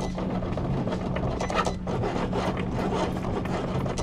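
Cricut Explore 3 cutting machine at work, its motors driving the blade carriage across smart vinyl: a steady low motor hum with uneven rasping strokes as the blade head moves and cuts.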